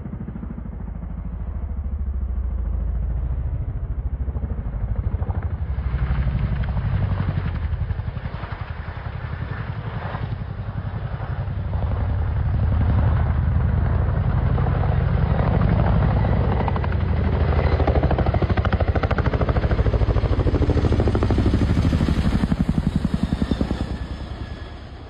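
Helicopter flying, its rotor beating in a fast steady chop over the engine's noise; it grows louder about halfway through and fades at the very end.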